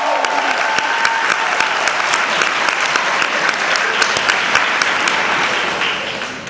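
Audience clapping and cheering in a hall, with a few high shouts in the first second or two. The clapping dies away near the end.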